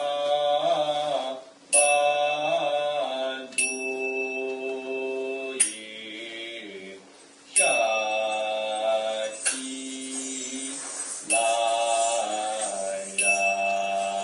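Charya giti devotional singing: a voice chanting in long, held notes with short pauses between phrases. Small hand cymbals are struck about every two seconds, each ringing on.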